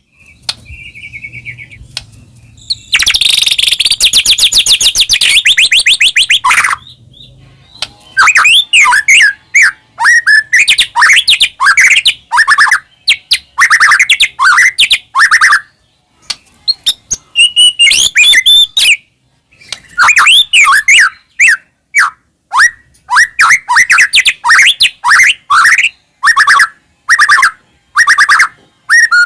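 White-rumped shama singing loud, varied whistled phrases of quick up-and-down notes, broken by short pauses. A fast, rattling run of repeated notes comes about three seconds in.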